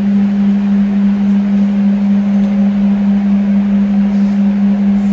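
A loud, steady low hum on a single unchanging pitch.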